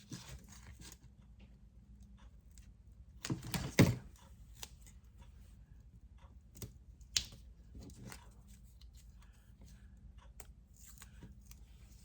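Paper scrapbooking pieces being handled: soft rustling with scattered light taps and clicks, a louder rustle about three and a half seconds in and a sharp click about seven seconds in.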